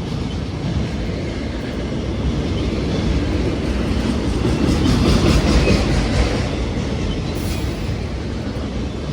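CSX freight train rolling past, a steady rumble of wheels on rail with repeated clattering over rail joints, loudest about five seconds in.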